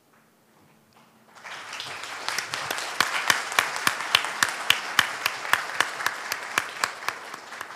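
Audience applauding. It builds about a second and a half in, with one nearby pair of hands clapping sharply at about three a second over the crowd, then dies away near the end.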